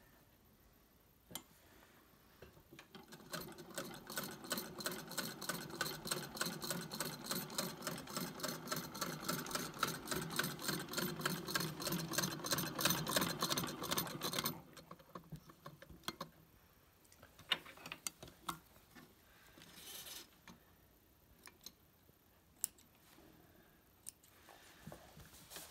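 Electa Bismarck sewing machine stitching a test seam, a steady run of about four stitches a second for some twelve seconds, then stopping. A few scattered clicks and knocks follow.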